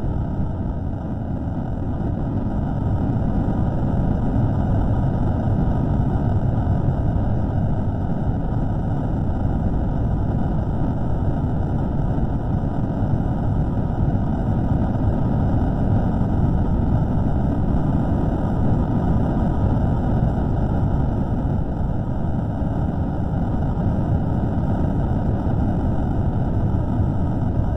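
Steady low rumbling noise from a microphone recording that has been slowed down, with no distinct events or tones in it.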